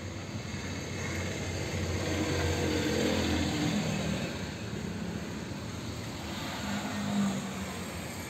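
A motor vehicle passing outside over steady background noise, its engine hum swelling to a peak about three seconds in and then fading, with a smaller swell near the end.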